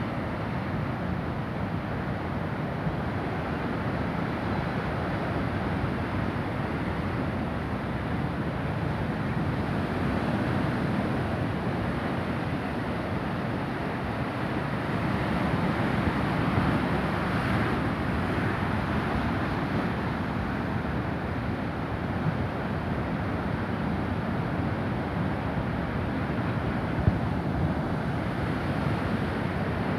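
Heavy, rough ocean surf breaking along the shore in a continuous wash of noise, with wind buffeting the microphone; the surge grows a little louder around the middle.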